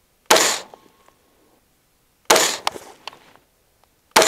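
Three rifle shots about two seconds apart from an AR-15 firing Fiocchi .223 Remington 55-grain FMJ boat-tail rounds, each a sharp crack with a short echoing tail.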